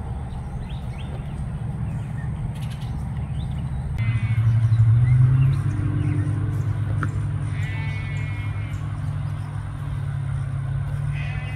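A steady low engine hum that swells briefly about four seconds in, with an animal bleating twice, once midway and again near the end.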